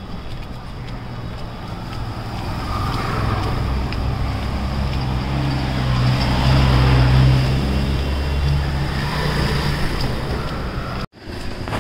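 Street traffic on a wet road: a vehicle engine hums close by, swelling to a peak about halfway through and then easing off. The sound cuts out abruptly for an instant near the end.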